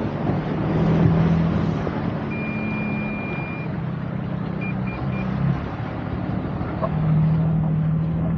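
2023 Toyota Sequoia TRD Pro's twin-turbo V6 hybrid powertrain running steadily off-road, its hum dropping about five and a half seconds in and coming back stronger about seven seconds in. A vehicle chime sounds over it: one long tone about two seconds in, then three short beeps.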